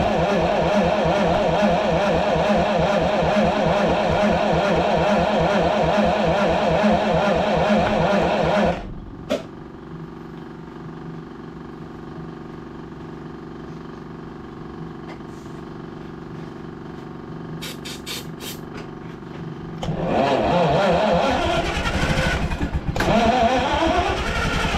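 The Hercules ZXB gasoline engine of a military Hobart generator runs loud and fast. About nine seconds in it drops abruptly to a much quieter, steady running sound, with a few clicks. Around twenty seconds in it picks up loud again, with rising revs.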